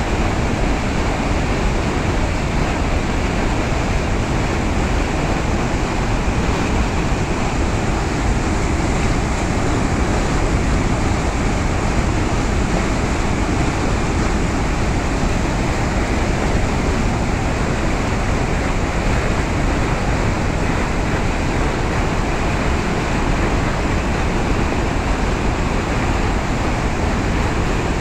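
Floodwater pouring over a dam spillway and churning through the rapids below it: a loud, steady rush of water.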